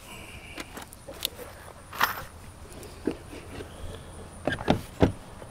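Scattered wooden knocks and clatter as a pine board door is handled and set against a coop doorway, with two louder knocks near the end.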